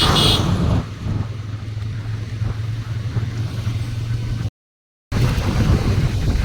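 Motorcycle engine running steadily while riding, with road and wind noise. The sound cuts out completely for about half a second after four seconds, then returns rougher and gustier.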